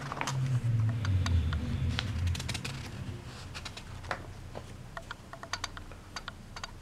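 Pages of old 1930s–40s newsprint magazines being turned and handled: paper rustling with many small dry crackles and ticks, and a low handling rumble during the first couple of seconds.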